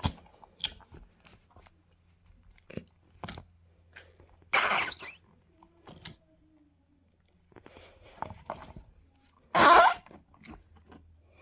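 Clear green slime being squeezed and squished by hand: scattered small wet clicks and pops, with two longer, louder squelches, one about four and a half seconds in and a louder one near ten seconds.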